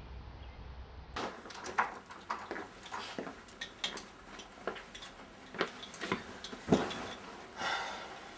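A man's footsteps on an indoor floor: a run of light, irregular knocks and clicks. Near the end comes a heavier thump and a brief rustle as he drops onto a fabric couch.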